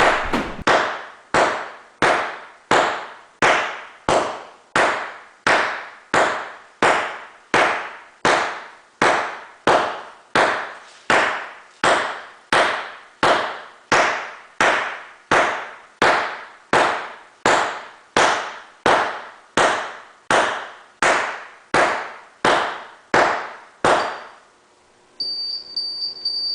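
A sledgehammer pounds a safety switch mat over and over in an even rhythm, about three blows every two seconds, each hit trailing off. The blows stop near the end, and a steady high-pitched electronic beep follows for a couple of seconds: the continuity beeper wired to the mat, showing the mat still activates.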